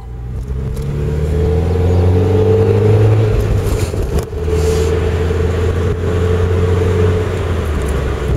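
A motor vehicle's engine accelerating with a loud, low rumble. Its pitch rises over the first three seconds, then holds steady.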